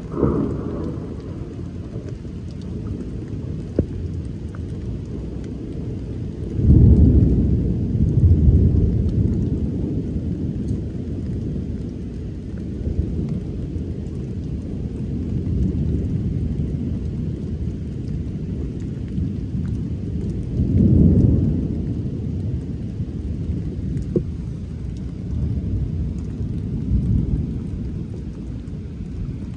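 Rolling thunder over steady rain. Several low rumbles rise above the rain's hiss; the loudest begins suddenly about a quarter of the way in and fades over a few seconds, and another peaks about two-thirds of the way through.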